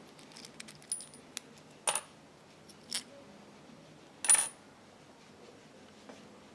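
Small metal clicks and clinks from a sewing machine's steel bobbin case and bobbin being handled: a few light clicks, then a louder metallic clink with a short, high ring a little after four seconds in.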